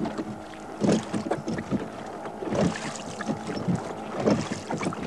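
A small rowboat on open water: repeated splashes and knocks, about once a second, as it is paddled, with wind on the microphone.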